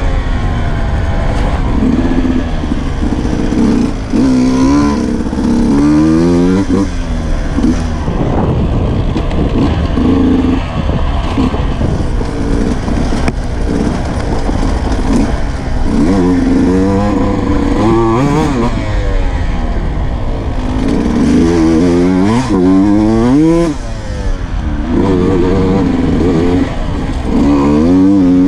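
Sherco 125 enduro motorcycle engine, recorded on board, revving up and dropping back over and over as it is ridden along a dirt trail.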